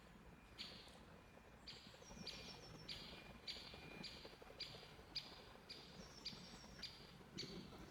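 Faint footsteps crunching on snow at a steady walking pace, about two steps a second.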